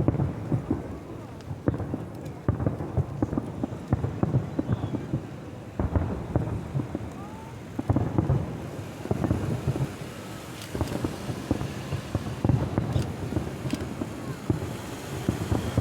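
Fireworks bursting in quick succession: a dense, irregular run of low booms and crackles.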